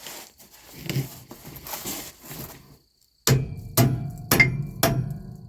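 Handling and scraping of trailer brake parts, then four hammer blows on steel about half a second apart, each ringing briefly, likely seating a seized S-cam brake part back in place.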